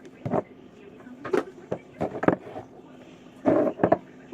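Irregular knocks and clatters of a refrigerator's shelves, drawers and food containers being handled while the fridge is cleaned out, with a quick run of knocks near the end.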